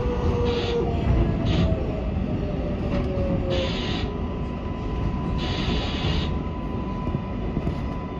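R188 subway car heard from inside its cab at a station: a steady rumble of wheels on rail, with a motor whine gliding slowly downward over the first few seconds and a steady higher tone after. Short bursts of hiss come several times, the longest near the middle.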